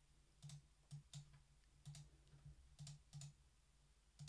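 Faint computer mouse clicks, about seven at irregular intervals and some in quick pairs, as dots are selected and a property menu is set in design software.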